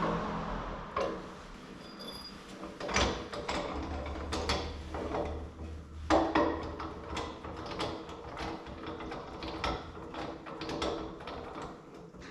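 A run of irregular clicks and knocks, like things being handled and set down, with a low steady hum under them for a few seconds in the middle.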